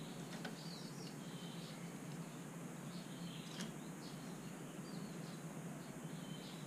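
Faint, repeated bird chirps, with two light clicks, one about half a second in and one about three and a half seconds in, over a steady low hum.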